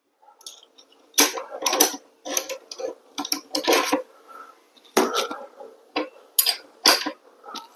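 Metal tools and parts clinking and knocking irregularly, a dozen or so separate strikes, during work on a motorcycle's rear wheel axle hardware.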